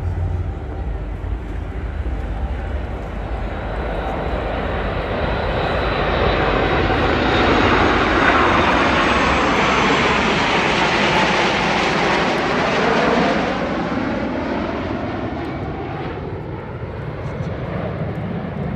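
Jet airliner flying low overhead: its engine noise builds to a loud peak about halfway through, sweeping in pitch as it passes, then fades away.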